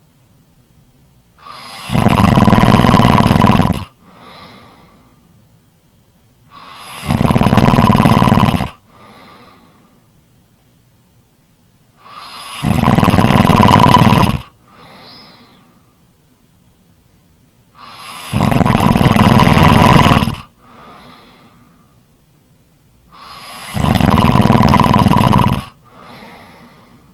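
Snoring: five loud snores, each about two seconds long, coming about every five and a half seconds, with a faint breath after each.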